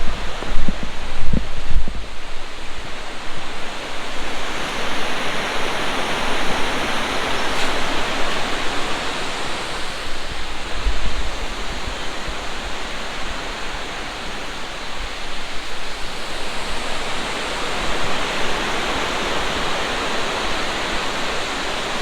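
Waterfall rushing: a steady, loud roar of falling water, with a few low thumps near the start.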